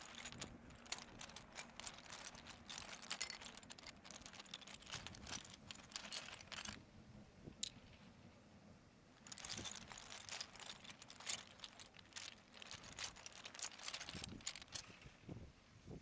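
LEGO 60052 blue cargo train locomotive running on plastic track through snow: faint, dense, irregular clicking and crunching of wheels on slushy rails. The clicking drops away for about two seconds near the middle, then returns.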